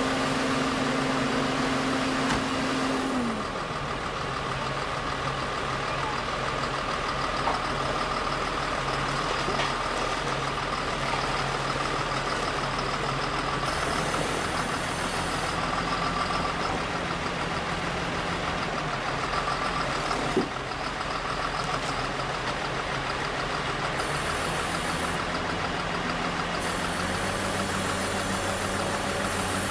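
Construction machinery engines running steadily, with a held mechanical tone that slides down in pitch about three seconds in. A single sharp knock comes about twenty seconds in.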